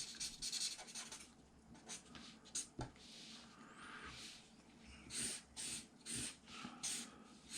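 Felt-tip marker pen rubbing back and forth on copy paper while colouring in, a faint series of short scratchy strokes that come about two a second in the second half.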